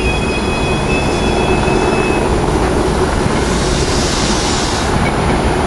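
SEPTA Regional Rail electric multiple-unit train running on the curved approach, a steady rail rumble with a thin high wheel squeal that fades out about two seconds in.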